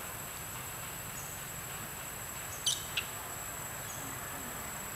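Forest ambience of insects: a steady high-pitched drone with a short chirp repeating about every second and a half. Just past the middle come two sharp high chirps in quick succession.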